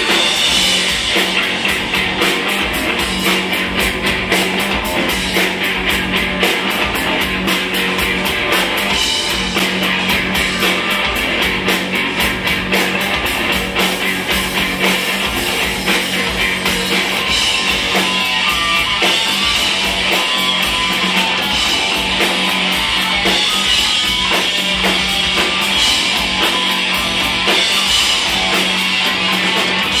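Live rock trio playing: electric guitar, bass guitar and drum kit, with steady, dense drum hits under a held low note.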